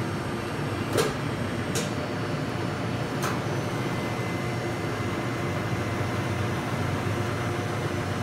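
Stoelting U431 soft-serve frozen yogurt machine running with a steady hum while frozen yogurt is dispensed. Three sharp clicks come about a second in, just under two seconds in and just past three seconds in, from the cup being set on the tray and the draw handle being worked; the first is the loudest.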